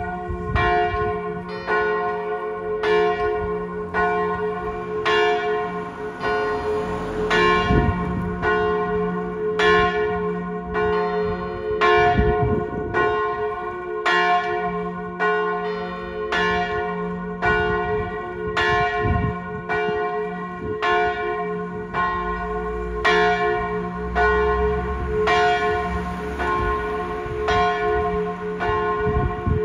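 Church bells tolling the death knell: a large bell swinging in full peal, with tolled strokes on a smaller bell. The strokes come evenly, about three every two seconds, over a continuous ringing hum.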